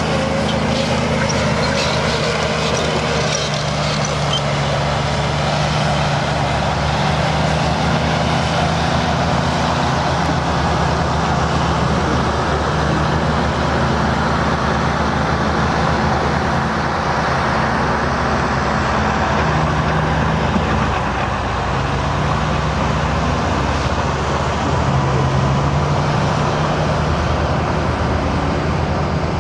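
Heavy diesel engine of an elevating scraper running steadily, its pitch shifting slightly a few times.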